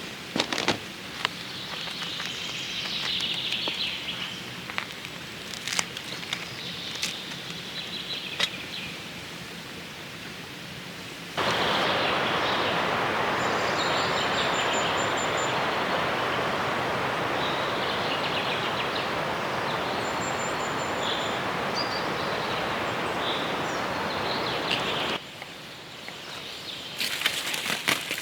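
Outdoor forest ambience with birds chirping, and scattered snaps and clicks in the first part. A louder, steady rushing noise starts abruptly about a third of the way in and cuts off abruptly near the end.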